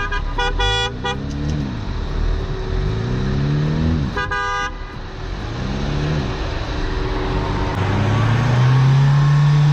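A Mahindra Thar's engine revving hard over and over, each rev rising and falling, as the SUV climbs a steep sandy slope; a longer, louder rev near the end is the loudest part. A car horn gives a few quick beeps in the first second and one more toot about four seconds in.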